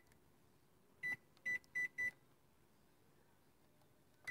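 Microwave oven keypad beeping as a cooking time is keyed in: four short, evenly pitched beeps in quick succession about a second in, then one more at the very end as the oven is started.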